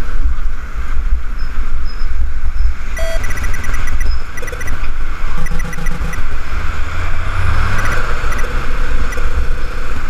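City traffic and road noise heard from a bicycle riding in traffic: a constant heavy low rumble, with wind on the microphone.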